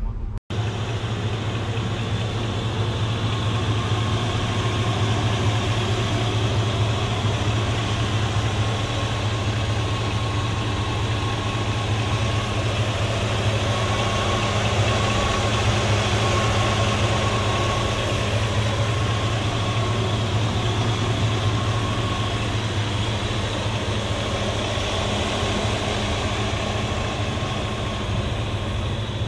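Chevrolet small-block V8 with an Edelbrock four-barrel carburetor and mild cam, idling steadily. A faint high whine sits over the engine through the middle stretch.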